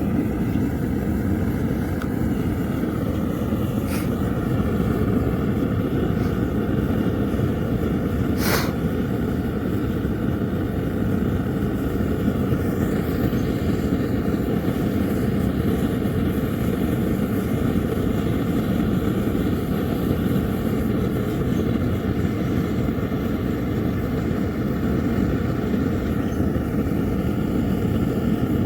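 Propane forge with a homemade Frosty T burner running: a steady, even rush of burning gas that holds level throughout. Two brief sharp ticks come through, about four seconds in and again about eight seconds in.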